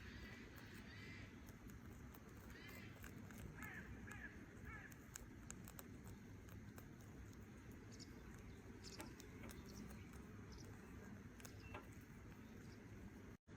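Near silence: faint outdoor ambience with a few faint bird chirps in the first few seconds and scattered light ticks.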